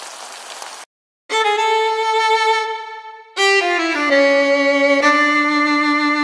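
A soft hiss cuts off just under a second in; after a short silence, solo violin music starts: a long held note, a few notes stepping downward, then a lower note held.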